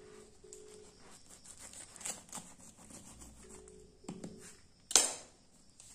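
Knife cutting into the bumpy rind of a whole jackfruit: a run of faint scratchy strokes, with one sharp click about five seconds in.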